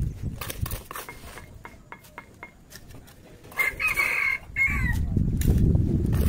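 A rooster crowing once, about a second long, ending in a falling note, a little past the middle. It comes after a few scattered light clicks, and just after the crow a steady low rumble sets in and is the loudest sound.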